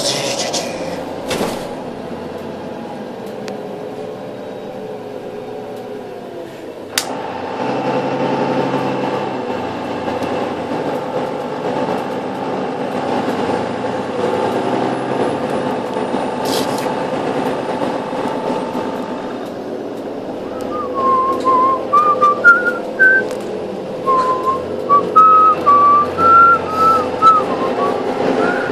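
Steady drone of a moving bus heard from inside the passenger cabin, with a sharp click about seven seconds in, after which the drone gets louder. In the last third a person whistles a wavering tune, louder than the drone.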